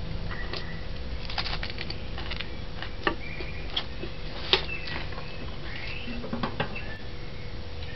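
A metal fork clicking a few times against a china plate while eating, over a steady low hum, with a few short high chirps in between.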